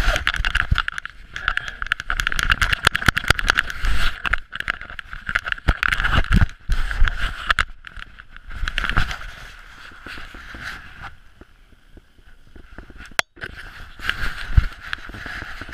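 Rustling and scraping of a dog-mounted GoPro rubbing against a basset hound's fur as the dog moves, in uneven bursts of rapid clicks, quieter for a stretch about eleven to thirteen seconds in.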